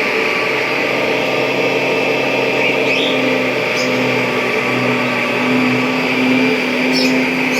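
Kirby G5 upright vacuum cleaner running steadily: a constant motor hum under a rushing hiss of air, with a couple of faint, brief high chirps.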